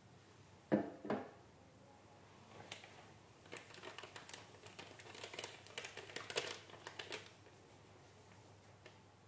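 Two sharp knocks as the slab is set down on a hard surface, then several seconds of a plastic bag of cornstarch crinkling and crackling as it is handled.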